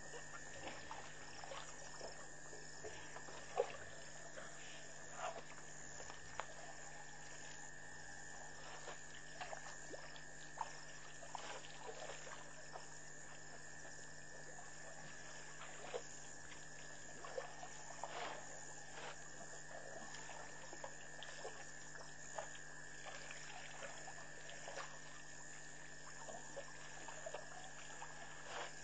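African elephants drinking at a waterhole: scattered splashes, dribbles and pours of water as they draw it up with their trunks, over a steady, high-pitched night chorus of frogs and insects. One sharper knock or splash stands out about three and a half seconds in.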